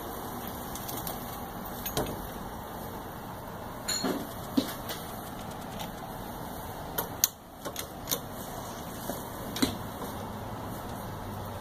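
Hydraulic 2-ton bottle jack on a tincture press being pumped by hand under load: scattered metallic clicks and knocks from the steel handle and jack, about eight in all, over a steady background noise.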